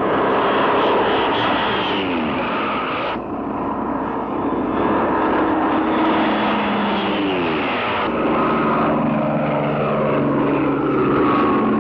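Bell P-39 Airacobra's Allison V-12 aircraft engine running at full power as the fighters take off and pass low overhead. The pitch drops twice as a plane goes by, and the sound changes abruptly twice between passes.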